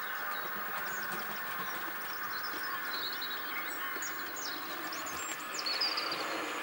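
Small birds chirping and twittering in quick runs of high notes, over the steady whirr of a Hornby OO gauge model locomotive running around the track.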